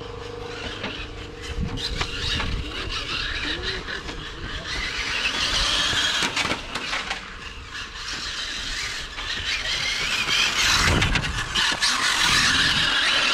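Electric brushless motor of a Hobao Hyper GT 1/8-scale RC car running on a 6S battery, a high whine rising and falling as it accelerates and slows around the track, with tyre noise on asphalt. It gets louder near the end as the car comes close.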